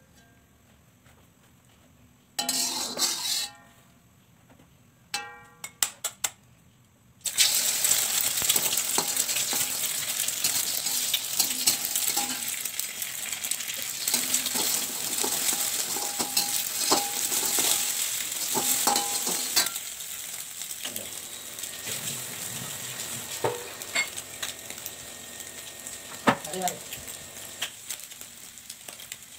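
Egg frying in hot oil in an aluminium wok: a steady sizzle starts suddenly about seven seconds in and keeps going while a metal spatula scrapes and taps against the wok as the egg is scrambled. Before the sizzle there are only a few short knocks and clicks.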